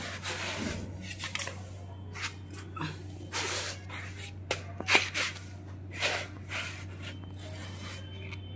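Small plastic toy car pushed by hand across a rough concrete floor: a string of short scraping rushes as its plastic wheels roll and skid, over a steady low hum.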